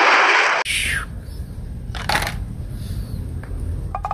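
Jet engine noise from a Eurofighter Typhoon fighter, a loud rushing sound that cuts off abruptly about half a second in. Then a low rumble and handling noise, with one click around the middle and a quick run of clicks at the very end.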